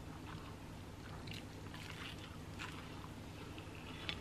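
Quiet close-up chewing of a hash brown, with a few soft, wet mouth clicks over a low steady room hum.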